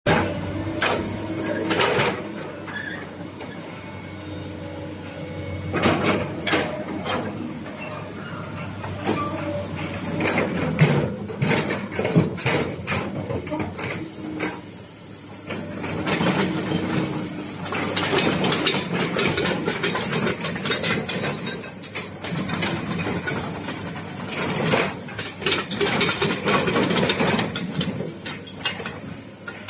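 Komatsu PC200-8 hydraulic excavator running, with a steady high whine that drops in pitch about halfway through and many metallic clanks and knocks throughout.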